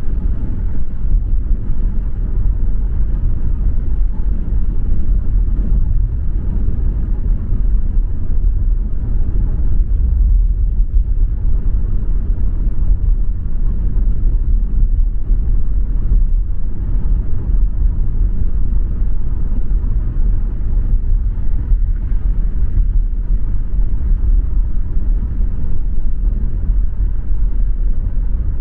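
A car driving along at a steady speed: a low, even rumble of engine and road noise.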